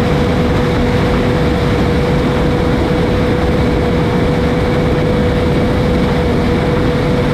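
Heavy farm machinery running steadily at working speed: a dense engine and drive noise with a constant whine held at one pitch.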